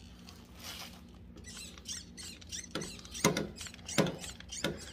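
Hand lever grease gun being pumped into a mower deck spindle's grease fitting. Small clicks, then four sharp strokes of the lever in the second half, roughly one every two-thirds of a second.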